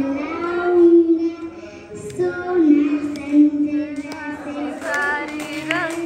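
A young girl singing a song into a microphone, holding long, steady notes and stepping between pitches.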